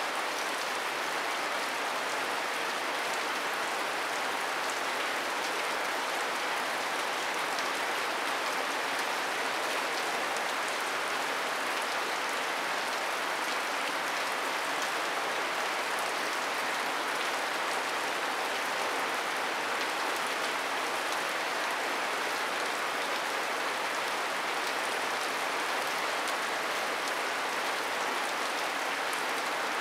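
Steady rain falling, an even hiss that does not let up or change.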